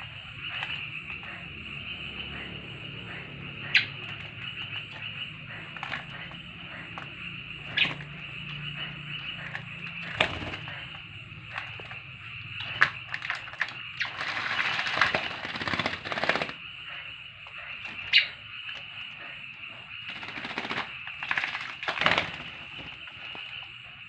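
A small black bird bathing in a plastic basin of water, splashing and fluttering its wings, with a longer burst of splashing a little past halfway. Sharp short clicks or chirps come every few seconds over a steady high hiss.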